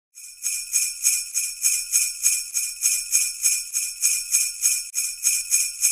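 Sleigh bells shaken in a steady rhythm, about three shakes a second, a bright jingling.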